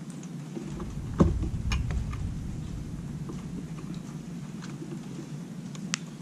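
Small sharp clicks and taps of a hand tool working screws in the hard plastic housing of a Polaris 280 pool cleaner, the loudest about a second in and another near the end. A low rumble comes and goes in the first two seconds over a steady low hum.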